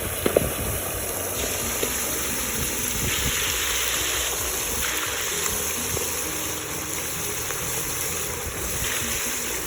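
Whole turkey deep-frying in very hot oil, around 450°F: the oil bubbles and sizzles steadily in the first seconds after the bird goes in, with a couple of sharp pops right at the start.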